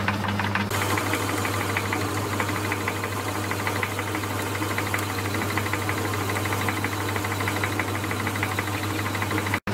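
Myford lathe running, with a steady motor hum and a fast, even mechanical clatter from its drive while a parting tool cuts off a small stud held in the chuck. The sound cuts out for an instant near the end.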